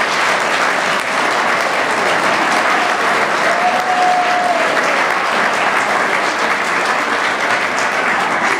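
Audience applauding steadily. A brief held tone rises above the clapping about halfway through.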